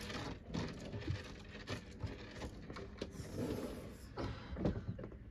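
Soft rustling and scattered small knocks of a toddler handling a plastic sippy cup among clothes in a wardrobe.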